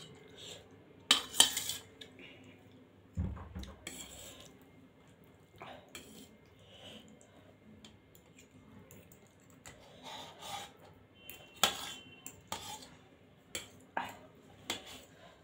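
Metal fork and spoon clinking and scraping against a stainless steel plate as noodles are twirled and gathered. The clinks come at irregular moments, the sharpest about a second in and again near twelve seconds.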